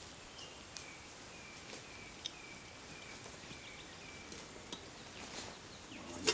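Faint woodland background: a bird repeats a short, slightly falling chirp about two and a half times a second through the first half, with a few scattered faint clicks.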